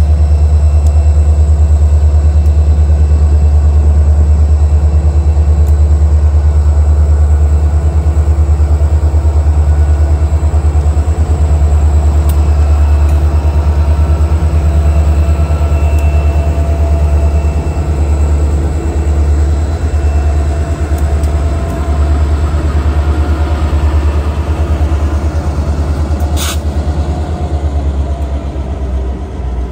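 EMD GP40-2 diesel locomotives running close by with a loud, steady low rumble. A single sharp click comes near the end.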